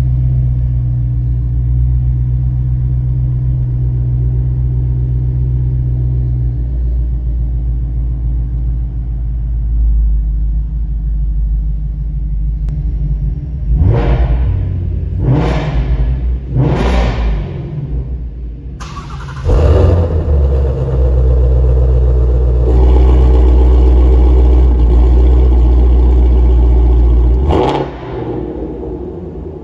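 Ford Shelby GT350R's 5.2-litre naturally aspirated flat-plane-crank Voodoo V8 idling steadily, then blipped three times in quick succession. It is then held at high revs for about eight seconds before dropping back, with one more short rev near the end.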